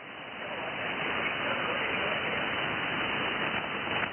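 Shortwave band noise from an Icom IC-705 transceiver's speaker in USB mode on the 20 m band: a steady hiss with no station on frequency, swelling over the first second. It is the raised city noise floor, heard through an active magnetic loop antenna.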